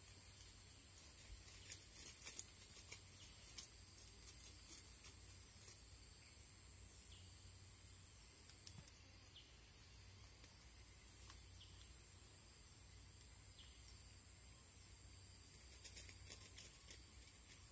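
Faint, steady, high-pitched insect drone, with a few small clicks scattered through it.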